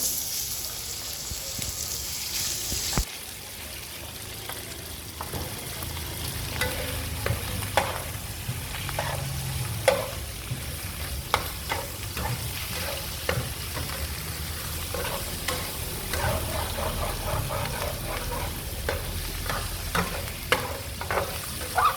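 Food sizzling in a hot pan while it is stir-fried, with repeated scrapes and clinks of a utensil against the pan. The sizzle is loudest for the first three seconds, then settles as the stirring goes on.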